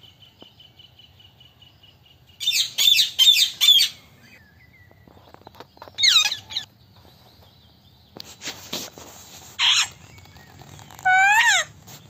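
Indian ringneck parakeets calling: a quick run of sharp, high-pitched calls about two and a half seconds in, another call about six seconds in, and a run of falling calls near the end.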